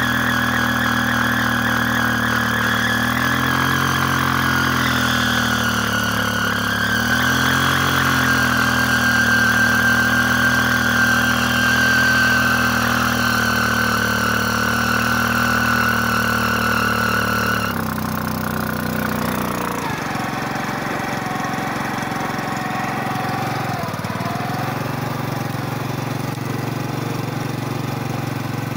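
Motorcycle engine held at high revs during a burnout, with the spinning rear tyre giving a steady high squeal. Some 17 seconds in the squeal cuts off, the revs fall away over about two seconds, and the engine settles to idle.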